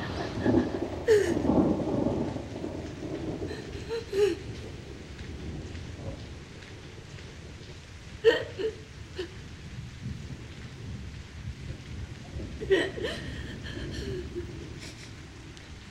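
Steady rain with a low rumble, and a person's short, catching vocal sounds breaking in several times, strongest about a second in and again around the middle and near the end.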